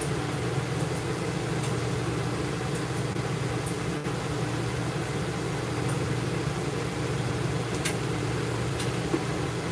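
Steady low machine hum inside a mobile dog-grooming van, unchanging throughout, with a couple of light sharp clicks near the end.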